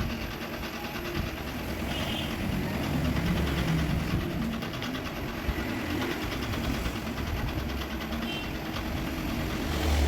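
Forbes Robo LAVC Voice Pro robot vacuum cleaner running its motors, a steady mechanical whirring with a fast rattle and a low hum that grows louder in the middle. The machine keeps reporting wheel-module and rolling-brush errors.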